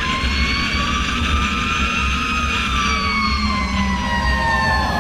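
Fire truck siren sounding while the truck drives: a long tone that rises slightly and then slowly falls in pitch, over the steady low rumble of the truck's engine and road noise.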